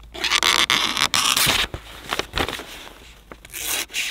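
SOG Camping Axe hatchet blade slicing through a sheet of paper, with paper rustling: a long rasping cut over the first second and a half, then shorter cuts. It is a paper test of the edge, which still cuts cleanly after chopping.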